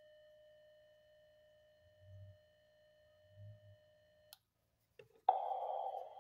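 Ham radio transceiver audio: a steady single-pitched tone that stops about four seconds in, with two low knocks from handling the tuner. About a second later a loud, narrow band of receiver static comes up abruptly. That jump in noise is the difference the operator listens for as the magnetic loop comes into tune.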